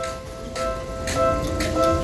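Japanese railway level-crossing warning bell ringing its 'kan-kan' alarm: two bells at slightly different pitches striking over each other in a quick repeating rhythm.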